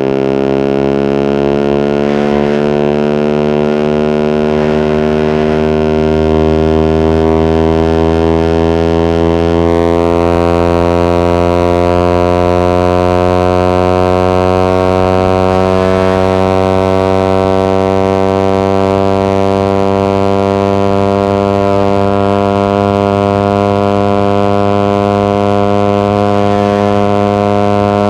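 Suzuki GSX-R150's single-cylinder engine running through an aftermarket exhaust, held at high revs as one steady drone whose pitch rises slowly and evenly.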